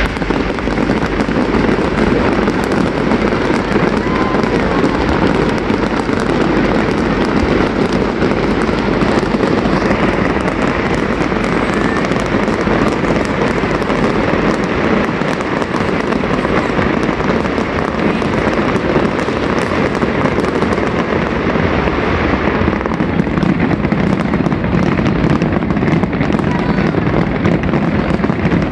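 Large fireworks display: a dense, continuous barrage of shell bursts and crackling with no let-up.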